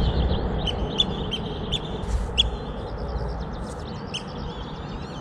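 Shorebirds calling: short, high calls repeated every half second or so, with a few gliding notes near the end, over a low, steady rumble.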